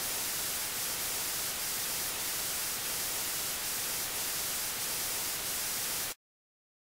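Steady static hiss, strongest in the high end, that cuts off suddenly about six seconds in, leaving dead silence.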